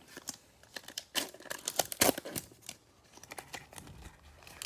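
Foil trading-card pack wrapper being torn open and crinkled: a run of irregular crackles, thickest in the middle.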